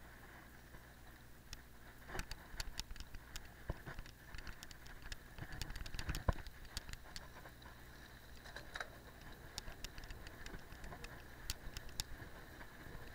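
Cyclocross bike ridden over frozen, bumpy grass and dirt: steady tyre noise with irregular clicks and knocks as the bike rattles over the ground, one louder knock about halfway through.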